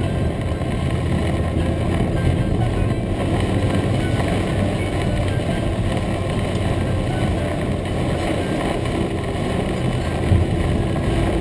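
Heavy rain drumming on a car's roof and windscreen, heard from inside the cabin as a loud, dense, unbroken hiss with a low rumble of the moving car underneath.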